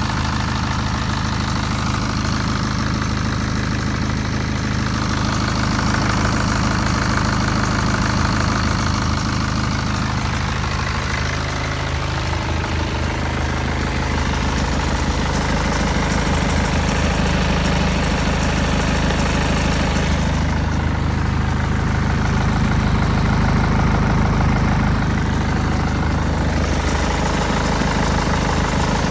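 BMW F10 520d's four-cylinder diesel engine running steadily, with an odd noise that the owner cannot tell apart as grinding or rushing air.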